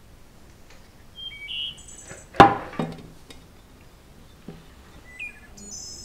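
A sharp metallic clunk from the metal keyboard case and PCB being handled on the table, about two and a half seconds in, followed by a smaller knock. Birds chirp briefly in the background.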